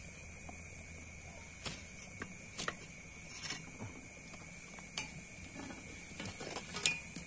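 A few faint, scattered clicks and scrapes as a speared tilapia is pulled by hand off the metal prongs of a spear tip, over a steady high-pitched chirring of night insects.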